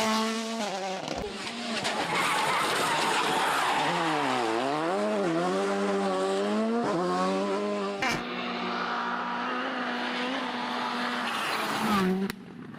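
Rally car engine at high revs, its pitch dropping sharply and climbing back about four seconds in, with several abrupt breaks in the note. Tyres skid on the surface underneath.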